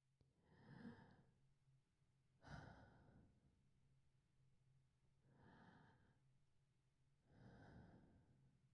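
A woman's slow, breathy exhalations, four in all, a couple of seconds apart, faint, over a low steady hum.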